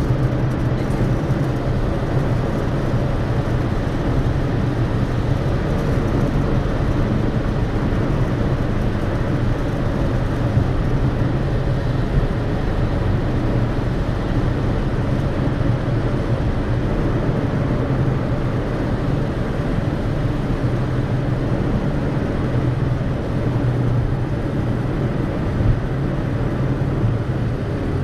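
Car driving through a road tunnel, heard inside the cabin: steady engine and tyre noise with a constant low drone.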